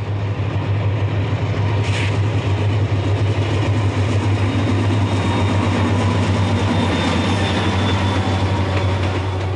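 Diesel freight locomotives passing close by: a steady low engine drone over the loud rumble of the train rolling on the rails, with a brief sharp hiss about two seconds in. The sound eases off near the end as the locomotives go by and the cars follow.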